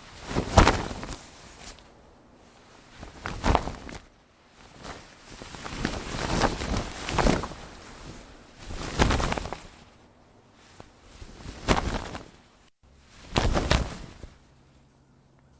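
Sail cloth flapping in a series of separate bursts, each a snapping flutter of about a second, with one longer run of flapping lasting about three seconds in the middle.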